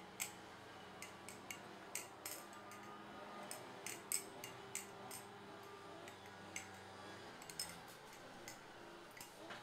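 Lovins Customs Strix balisong being flipped by hand: a string of light, irregular metal clicks as the handles swing around and knock against the blade and each other.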